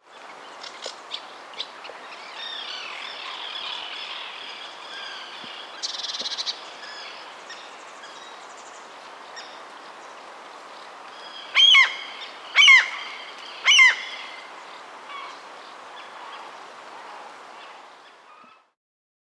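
Seagulls calling over a steady background hiss of the beach: scattered shorter calls, then three loud gull calls about a second apart past the middle. The sound cuts off near the end.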